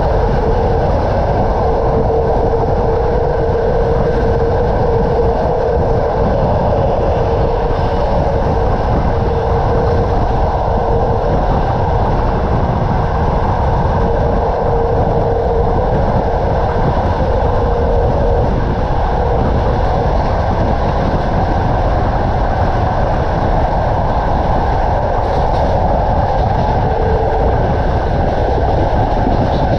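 Passenger train running steadily, heard from inside a carriage at the window: a continuous rumble of wheels on rails, with a mid-pitched hum that comes and goes.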